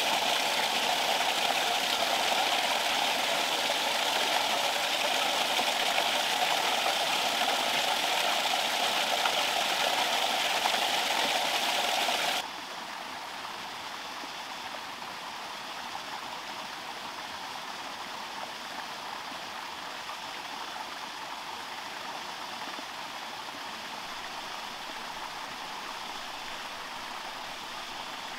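Water running steadily through a pond drain outlet, heard close and loud at first. About 12 seconds in it drops suddenly to a quieter, steady rush of water pouring from the outlet into the pond.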